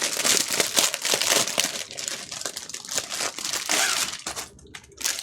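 Crinkly packaging being handled and unwrapped from a pack of tool bags: dense crackling, loudest in the first half and thinning out over the last couple of seconds.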